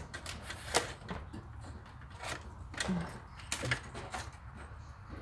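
Scattered light clicks, taps and rustles of wires and small parts being handled and fitted, over a steady low hum.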